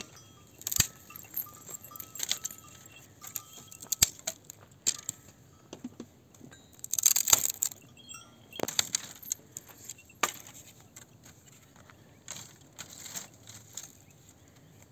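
Dry brushwood branches and sticks being dragged and handled: an irregular run of sharp clicks, cracks and scraping, busiest and loudest about seven seconds in.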